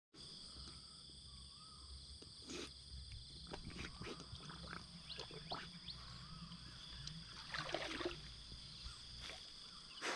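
Faint splashing and rustling as a man wades in shallow pond water and a dog pushes through the waterside grass, with a louder stir of water about three quarters of the way through, over a steady high insect drone.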